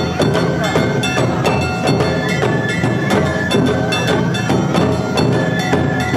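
Awa odori hayashi band playing: big and tight-headed taiko drums and a kane hand gong keep a steady beat, while a bamboo flute holds high notes over them.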